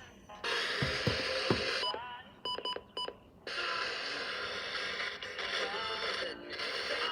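A radio receiver being tuned between stations: hiss and static with snatches of broadcast audio, and a few falling whistles about a second in. A quiet gap follows, broken by several short electronic beeps around two to three seconds in, before the static returns.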